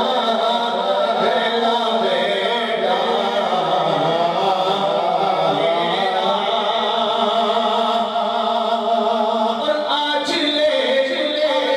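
A male voice singing a naat unaccompanied, holding long melismatic notes.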